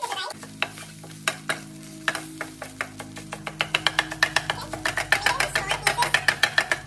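Spatula tapping and scraping against a nonstick frying pan while scrambling eggs, with a soft sizzle of the eggs frying. The strokes are spaced out at first, then come quickly, several a second, from about halfway through.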